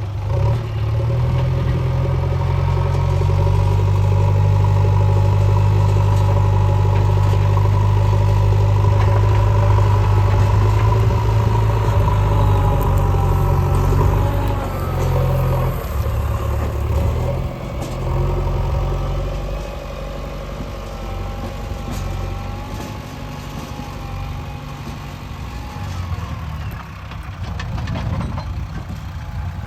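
JCB 3DX backhoe loader's diesel engine working under load, with a higher whine that wavers up and down above it. About halfway through it eases off to a lower, quieter run.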